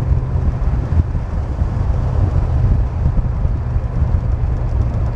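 BMW E39 sedan at freeway speed, heard from inside the cabin: a steady engine drone under a continuous road and tyre rumble.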